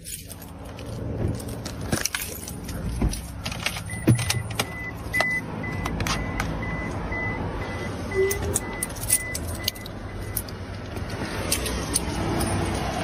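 Clicks and rattles of a phone being handled inside a car. A car's warning chime beeps evenly, about two beeps a second, from about four seconds in until about ten seconds in, over a low steady hum.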